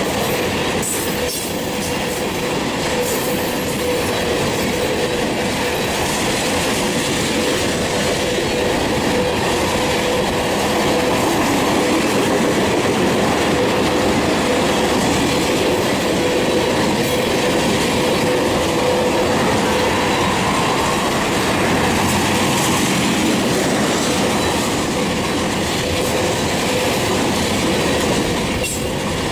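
Freight train cars rolling past steadily, a continuous rumble of wheels on the rails with a faint steady ringing tone running through it.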